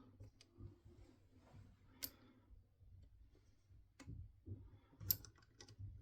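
Faint handling noise with three sharp clicks about a second or two apart, from metal parts of a KME knife sharpener's clamp jaws and a fillet knife being set in place.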